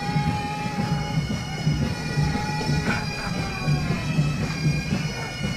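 Military pipe band playing a march: bagpipes holding and stepping between melody notes over their drone, with drums beating a steady marching pulse about twice a second.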